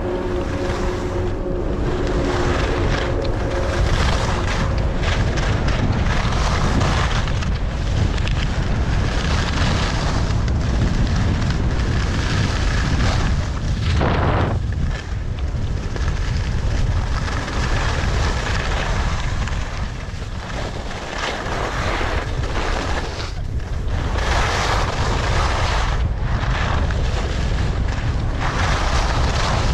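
Wind buffeting the camera microphone of a skier going downhill, a heavy low rumble, with the skis hissing and scraping over chopped-up groomed snow, swelling and fading with each turn.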